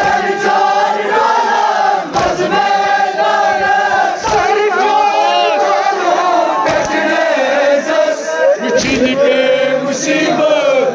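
A group of voices chanting a Kashmiri noha, a mourning lament, together in a drawn-out melody. A short thump cuts across the singing about every two seconds.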